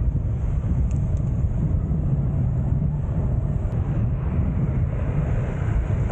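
Steady low wind rumble on the microphone of a moving e-bike, mixed with road and city traffic noise.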